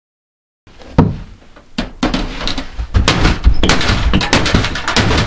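A single sharp knock about a second in, then loud, continuous banging and clattering, dense with knocks.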